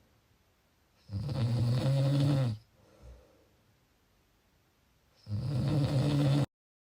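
A person snoring: two loud snores about four seconds apart, each a second or more long, with a faint breath between them. The second snore cuts off suddenly.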